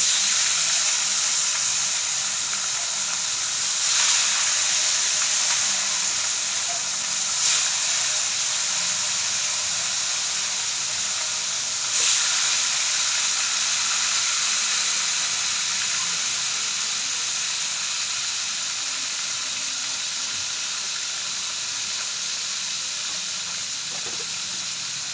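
Food frying in hot oil, a steady loud sizzle that starts suddenly, with a few sharp pops and crackles from spattering oil.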